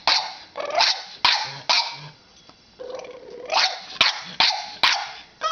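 Boston terrier puppy barking sharply at a toy horse figurine it is wary of. There are about eight short barks in two volleys, with a pause of a second or so between them.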